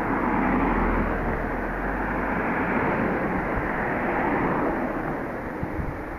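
Local electric train passing with a steady rumble that peaks about a second in and slowly fades.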